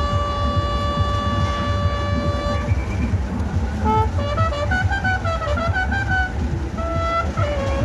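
Band music: brass horns hold one long note, then play a quicker ornamented phrase about halfway through, over steady drumming.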